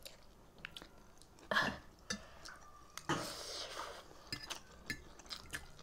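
Metal forks and spoons clinking and scraping against ceramic plates during a meal of noodles, as scattered light clicks. Two short louder noisy sounds come about a second and a half in and again about three seconds in.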